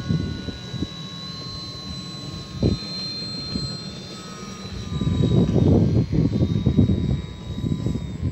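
Radio-control model Cessna's motor and propeller running with a steady high whine as the plane taxis across grass, the pitch drifting slightly. A louder low rumbling comes in from about five seconds in.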